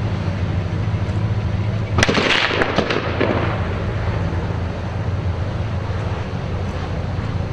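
A sudden loud burst of weapons fire about two seconds in: one sharp report followed by several quick cracks within about a second, then dying away, over a steady low rumble.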